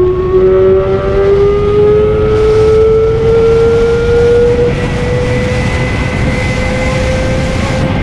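Kawasaki ZX25R's 250 cc inline-four engine running at high revs under way, its pitch climbing slowly and steadily as the bike pulls in one gear, over wind rush.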